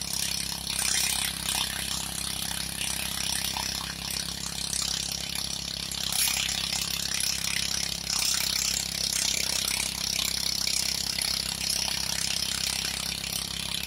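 Engine-driven rice threshing machine running steadily, its engine humming under a constant rattling clatter from the threshing mechanism.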